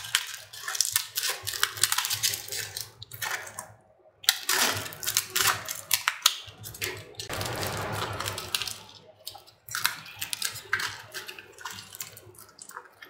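Aluminium foil crinkling and crackling as it is trimmed with scissors and pressed into a small cup shape, with a denser rustle about seven to nine seconds in.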